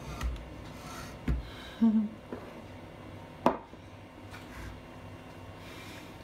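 A few light knocks and one sharp click about three and a half seconds in: a blender jug of smoothie handled and set down on its base on a countertop. A brief voice sound comes near two seconds.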